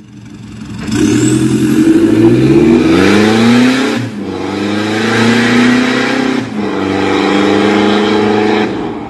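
Mitsubishi Pajero Sport's engine accelerating hard through an aftermarket stainless full-system exhaust with a valvetronic valve. The pitch climbs, drops sharply at upshifts about four and six and a half seconds in, climbs again, then fades as the SUV pulls away.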